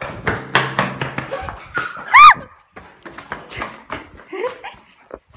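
Knocks and rustling from a handheld phone being carried on the move. About two seconds in there is a short, loud, high-pitched squeal that rises and falls in pitch.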